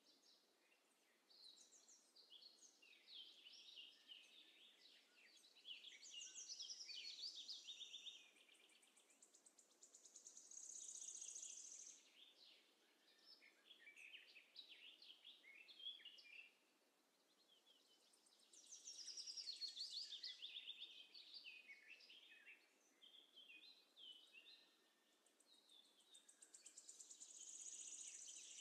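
Faint birdsong: a songbird singing repeated phrases of quick chirps and rapid high trills, with pauses of a second or two between phrases.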